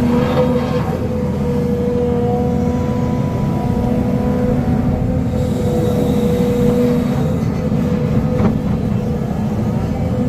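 SDLG excavator's diesel engine running steadily, with a steady whining tone over a low rumble.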